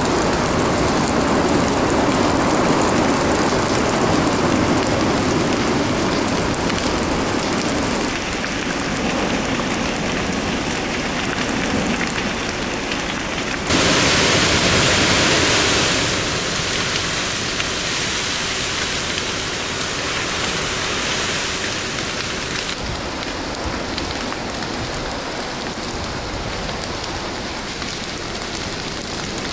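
Forest fire burning through conifer trees: a loud, steady rushing noise that shifts abruptly several times. It is loudest and hissiest for a couple of seconds around the middle.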